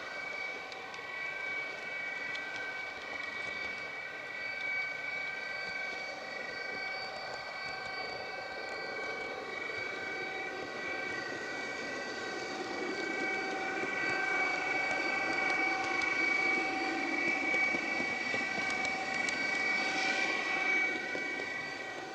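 H0-scale electric model train running on the track: a steady whine made of several tones from the electric motors, over a rumble of wheels on rail that grows louder in the second half.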